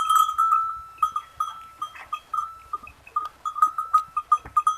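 A small metal bell on a goat in a herd of Nachi goats clinking irregularly, several short pings a second at one pitch, as the goats move about.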